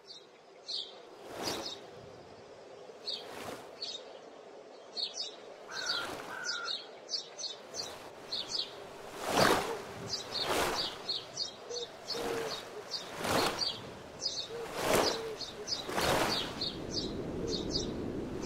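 Forest ambience of small birds chirping in short high calls, with about ten brief whooshing bursts, the loudest sounds, spread through it.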